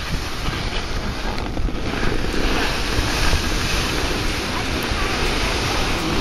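Wind rumbling on the camera microphone over a steady hiss of skis sliding on snow.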